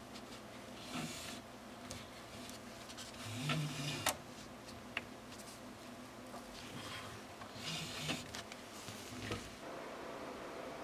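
Hands handling the plastic parts inside an opened Epson inkjet printer: scattered clicks, knocks and rubbing, with a sharp click about four seconds in.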